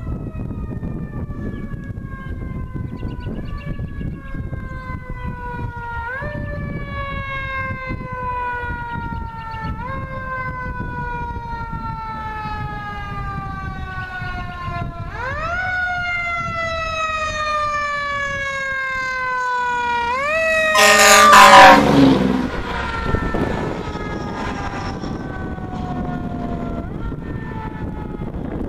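Federal Q mechanical siren on a 1997 Seagrave aerial ladder fire truck, winding up and coasting down over and over as the truck approaches. About three-quarters of the way in there is a short loud blast as the truck passes, and the siren's pitch drops. Afterwards it keeps winding, softer, as the truck moves away.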